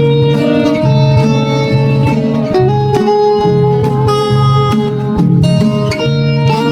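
Music led by plucked guitar notes over a steady low bass line.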